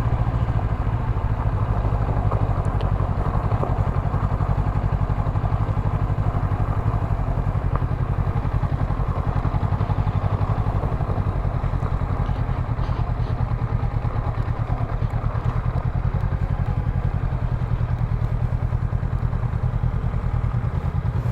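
Motorcycle engine running steadily under way, its firing pulses even and unbroken.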